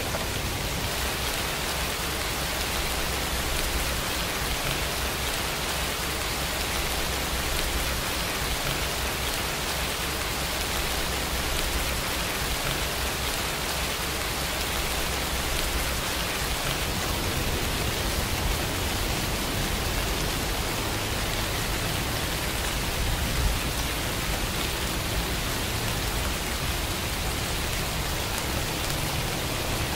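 Steady rain falling: an even, unbroken hiss of rain.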